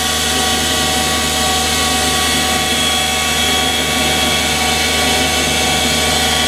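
Valve refacing machine running steadily, its motor and grinding stone spinning, with an even whine made of many steady tones.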